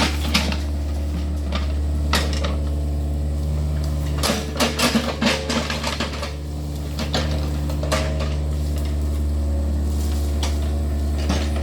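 Yanmar excavator's diesel engine running steadily, with metallic clanks and knocks from the working bucket and arm, thickest about four to six seconds in.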